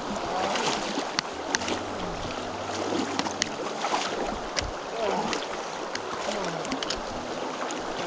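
Wading through a shallow creek: water splashing and sloshing around the legs with each step, over the steady rush of the flowing stream.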